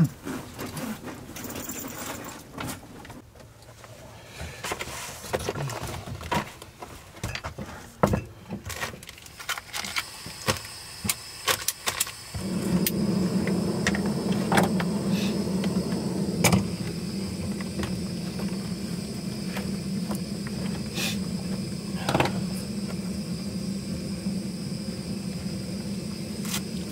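Clicks and knocks of handling for the first twelve seconds or so. Then a gas canister stove lights, and its burner runs with a steady rushing hiss, with a few more light knocks over it.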